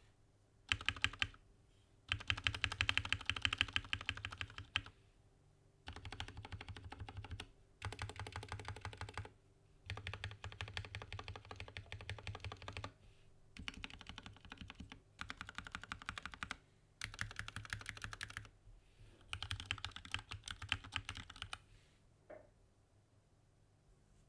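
Typing on a mechanical keyboard with vintage Cherry MX Black linear switches lubed with Krytox 205g0, in a foam-dampened XD87 kit with double-shot PBT keycaps: rapid key presses in bursts of a few seconds with short pauses between.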